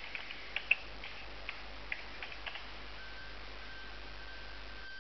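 Computer keyboard keys clicking as a short search term is typed: about a dozen quick, irregular keystrokes, one louder than the rest, over the first two and a half seconds. Then a faint steady high tone.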